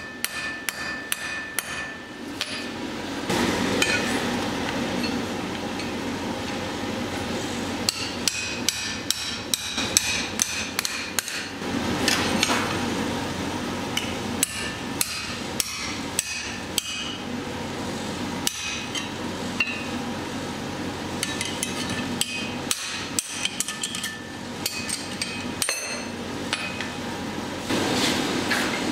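Blacksmith's hammer striking hot steel on an anvil, in runs of quick blows with short pauses between. A steady rushing noise sits underneath.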